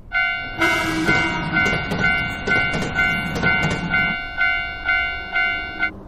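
Japanese railroad crossing warning bell ringing its 'kan-kan' about twice a second, over the rumble and clatter of a passing train. The train noise ends about four seconds in while the bell keeps ringing, and the bell stops just before the end.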